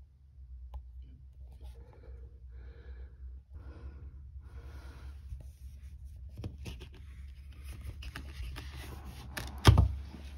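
A plastic glazing bead being prised out of a UPVC door panel with a flat-bladed tool: irregular scraping and creaking of the plastic, a run of clicks, then one loud snap near the end as the bead comes free.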